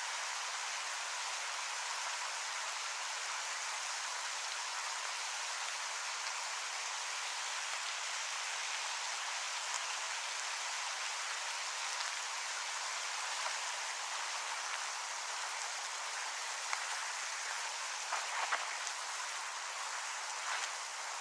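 Steady rain falling: an even hiss with scattered drop taps, and a few slightly louder taps near the end.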